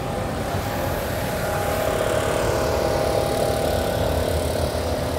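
Backpack leaf blower engine running steadily, slightly louder from about two seconds in.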